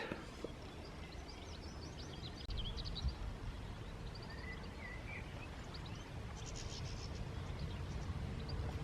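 Faint birdsong of scattered short chirps and trills over a low outdoor rumble, with a faint steady hum through the middle.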